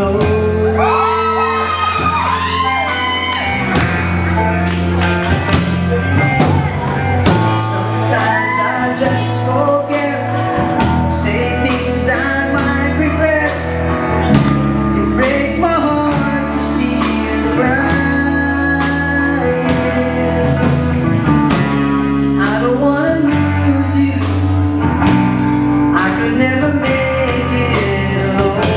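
A man singing a love song into a microphone, amplified through a PA, backed by a live band of acoustic guitar, electric guitars and drums.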